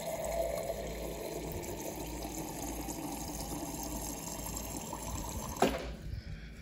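Water running steadily into a vessel, stopping about five and a half seconds in with a sharp knock.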